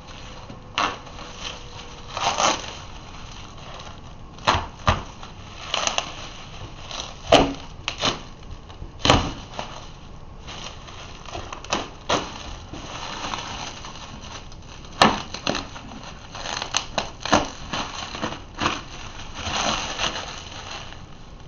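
Bubble wrap and packing tape being cut and pulled open with a small blade: irregular crinkling and rustling, with sharp clicks and crackles now and then.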